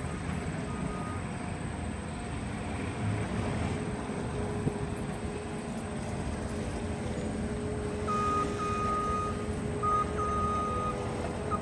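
Steady low outdoor rumble, with a clear high steady tone that comes and goes in stretches over the last few seconds.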